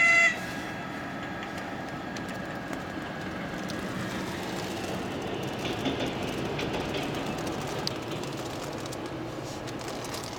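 A short, loud horn blast from an electric locomotive right at the start, then the rumble and wheel clatter of the locomotive running light over a level crossing, loudest about halfway through.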